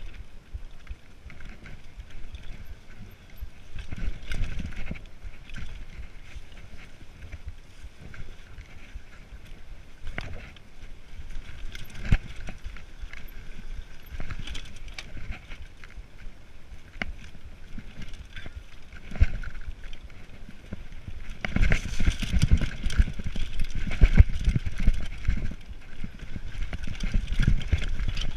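Mountain bike descending a dirt forest trail: tyres rolling over dirt and roots, with frequent sharp knocks and rattles from the bike over bumps. A rougher, louder stretch of hard hits comes about three-quarters of the way through.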